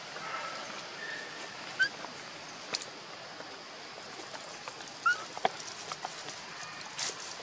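A few brief, high animal chirps, two of them rising, over a steady outdoor hiss, with a couple of sharp clicks.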